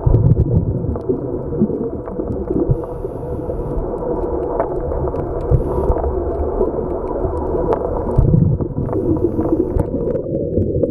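Underwater scuba breathing heard through the camera housing: the diver's regulator exhaust bubbles give low rumbling surges at the start and about 8 seconds in, with brief faint hisses of inhalation between them. Scattered small clicks run through the muffled background.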